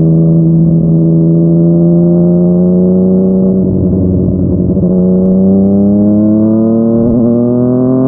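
Yamaha MT-09's inline-three engine through a Yoshimura R55 slip-on exhaust, pulling under steady throttle in one gear, its note rising slowly. The note wavers briefly about four seconds in, then keeps climbing.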